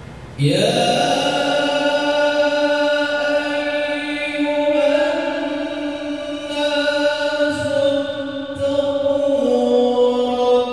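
A man's voice reciting the Qur'an in melodic tilawah style into a microphone. It begins about half a second in and draws out long, ornamented notes that slowly bend in pitch.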